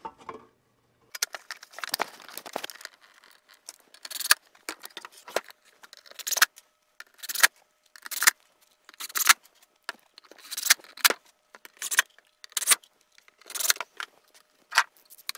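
Craftsman 20V Max cordless impact driver run in a dozen or so short, clattering bursts, roughly one a second, driving in the fasteners of a snow thrower attachment's plastic side cover.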